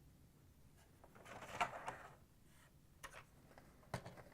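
Faint handling of plastic appliance parts: a soft scrape about a second in, then a couple of small plastic clicks near the end.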